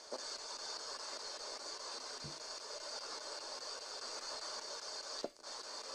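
Spirit box hissing with steady radio static. It cuts out briefly at the start and again about five seconds in, with a short faint low tone about two seconds in.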